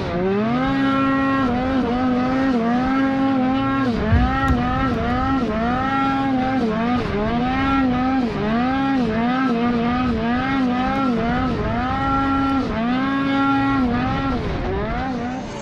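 Snowmobile engine running hard, its pitch repeatedly dropping and climbing back about every second or so as the throttle is let off and opened again. A short thump comes about four seconds in.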